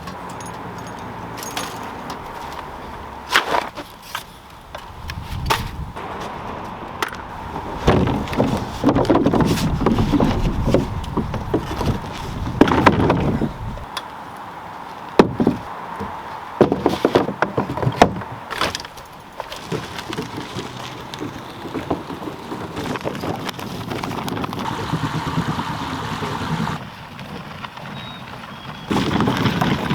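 A series of knocks, clunks and rattles from objects being handled, with a stretch of rumbling noise in the middle.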